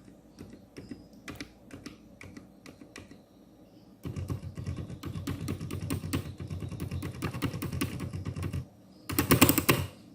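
Keystrokes on a mechanical keyboard in an acrylic gasket-mount case: scattered single key presses at first, then fast continuous typing from about four seconds in, ending with a short, louder flurry of keystrokes near the end.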